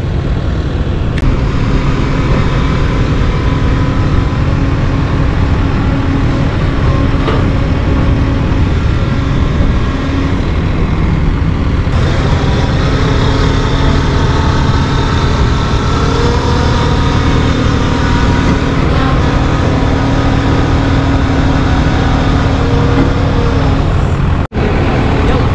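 Heavy truck engine running steadily at a fast idle, its pitch rising and falling slightly a couple of times, with a momentary break near the end.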